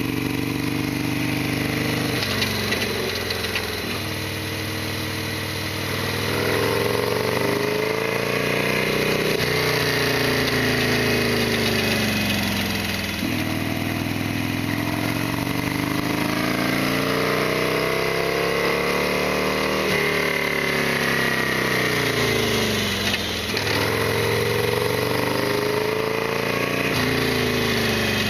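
Harley-Davidson Sportster XL1200R's air-cooled V-twin engine running under way, its pitch rising and falling several times as the bike speeds up and slows. A steady hiss of wind and road runs underneath.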